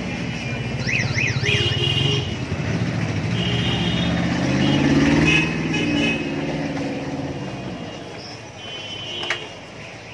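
A motor vehicle's engine passing close by on a busy street, building to its loudest about five seconds in and then fading. Several short horn blasts sound over it, some of them warbling, and frying oil hisses steadily underneath.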